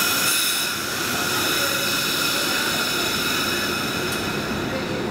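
Amtrak Northeast Regional electric train standing at the platform, its electrical equipment giving a steady high-pitched whine of several tones that starts suddenly, over a low rumble.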